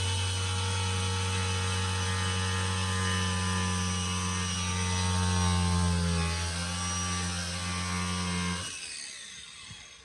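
Angle grinder running steadily as its disc cuts through a plastic trim panel, which is melting under the disc. Its pitch sags slightly under load a little past halfway, then it is switched off near the end and winds down.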